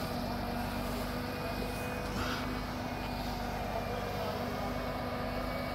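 Lorry-mounted Hiab crane truck's diesel engine running steadily to drive the crane's hydraulics, an even drone with a steady hum.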